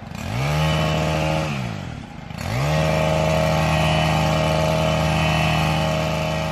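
Small engine of a gas-powered landscaping tool revving up, easing off about a second and a half in, then throttling back up and running steadily at high speed.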